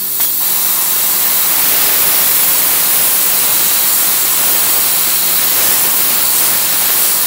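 Cut 80 plasma cutter, fed by its built-in air compressor, cutting through 16 mm steel plate: a loud, steady hiss of the plasma arc and air jet, with a faint steady low hum underneath.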